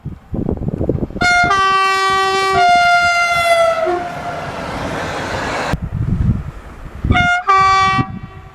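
Train horn sounding a long blast of two notes from about a second in, the higher note falling slightly in pitch near its end, followed by the rushing noise of the train passing. After an abrupt cut, a second short horn blast near the end. Wind buffets the microphone between.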